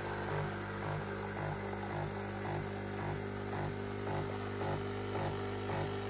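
Nespresso Creatista Pro coffee machine running as it pulls an espresso shot and its steam wand froths milk in the jug: a steady mechanical hum with a light hiss, pulsing evenly about twice a second.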